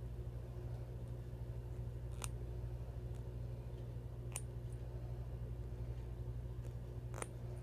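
Faint handling noise of fingers unravelling paracord strands on a jig hook: three short sharp clicks about two to three seconds apart over a steady low hum.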